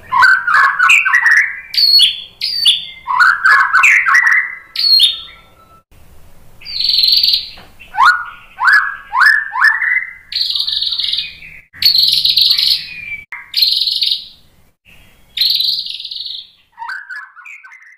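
White-rumped shama (murai batu) singing a long, varied song: quick runs of rising and falling whistled notes, then, from about seven seconds in, harsh buzzy phrases alternating with sharp rising whistles.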